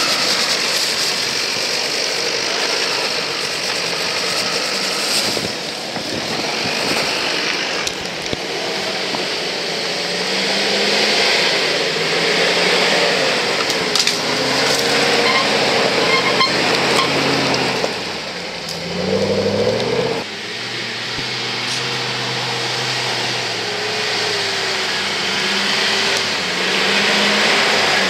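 Off-road 4x4 engines revving unevenly under load on a rough dirt trail, the pitch rising and falling, with a sharp rev-up about two-thirds of the way in, over a steady rushing noise.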